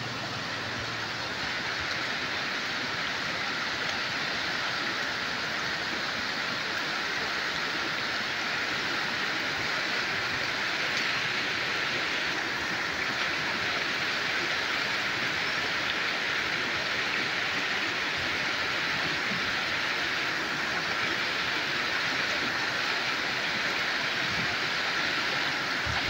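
Fast mountain river rushing over a stony bed: a steady, unbroken wash of water noise.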